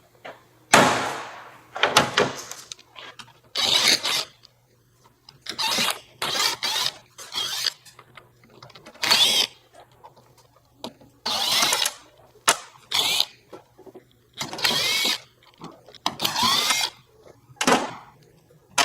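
A power tool run in about a dozen short bursts, each a second or less, its whine rising and falling, as it backs out the bolts holding a differential's center housing.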